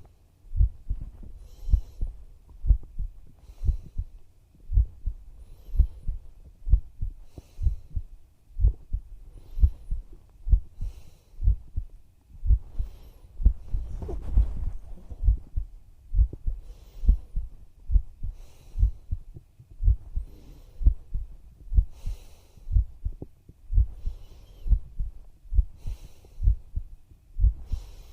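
A real human heartbeat, picked up close to the chest: steady, low double thumps (lub-dub) at an even resting pace. A soft noisy swell rises about halfway through.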